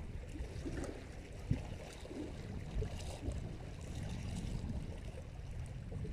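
Small waves lapping and splashing against a rocky lakeshore, scattered soft splashes over wind rumbling on the microphone.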